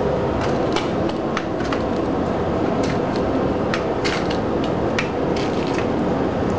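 Steady low rumbling background noise, like a fan or ventilation running, with a scattered series of light clicks and taps as ricotta is piped from a cloth bag into small plastic cups on a metal tray.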